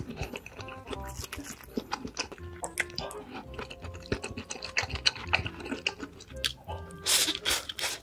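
Close-miked chewing with frequent crunching of fried food, over soft background music. Near the end comes a loud slurp as a mouthful of black bean noodles is drawn in.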